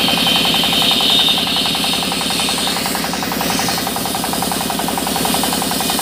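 Sawmill band saw running and ripping a squared mahogany beam as it is fed along the table: a steady, fast-pulsing mechanical drone, with a higher hiss over the first couple of seconds.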